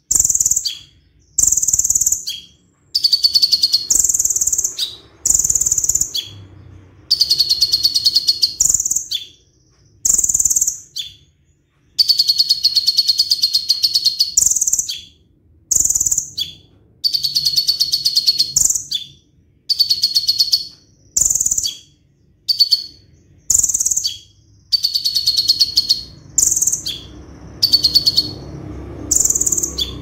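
Male kolibri ninja (konin) sunbird singing its rolling 'tembak' song: loud, high phrases of one to two seconds, many of them rapid-fire trills of fast repeated notes, separated by short pauses and single sharp chip notes.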